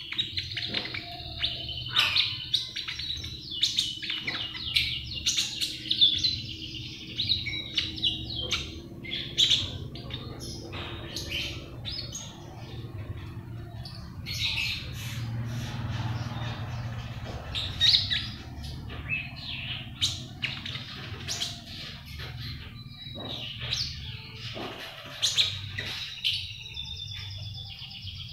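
Caged konin bird chirping and twittering in rapid, short high calls, thinning out midway and picking up again, over a steady low hum.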